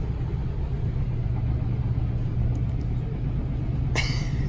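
Steady low rumble of a moving passenger train heard from inside the carriage, with a brief high-pitched sound near the end.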